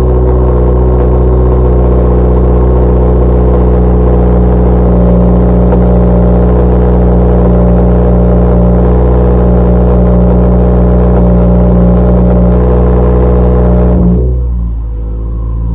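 Turbocharged car engine running loud and steady at an unchanging pitch. About fourteen seconds in, the higher part of the sound drops away and it goes quieter for a moment, then it steadies again just before the end.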